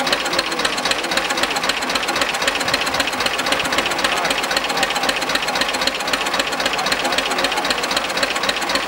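Old Hanomag tractor engine idling steadily, with a rapid, even knocking beat.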